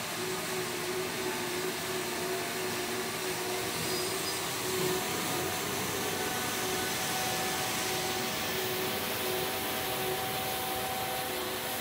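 Johnston RS655 street sweeper running with its sweeping gear working. It gives a steady rushing noise like a large vacuum, with a steady hum of engine and fan tones over it.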